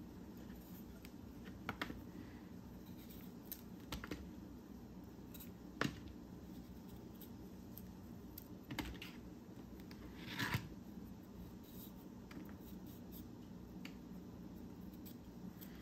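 Broccoli being trimmed by hand with a knife: faint, scattered crisp cuts and snaps through the stems, one every few seconds.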